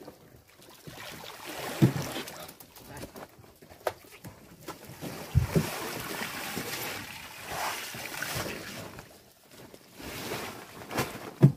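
Water splashing and churning as masses of small fish are scooped out of a lift net with a hand scoop net, with a few sharp thumps, about two, five and eleven seconds in, the last the loudest.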